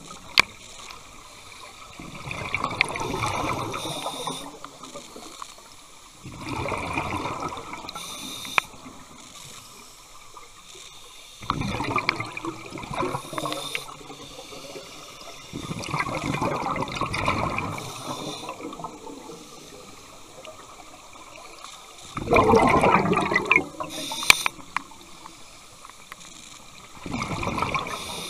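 A scuba diver's exhaled breath bubbling out of the regulator underwater, in bursts of a second or two about every four to six seconds, six times in all.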